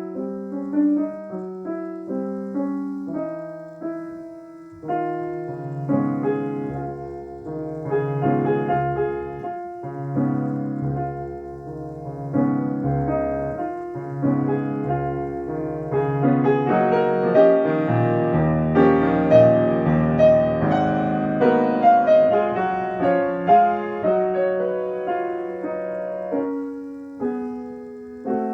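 Solo acoustic piano playing a classical piece: a continuous flow of chords and melody that swells to a louder passage past the middle, then eases off near the end.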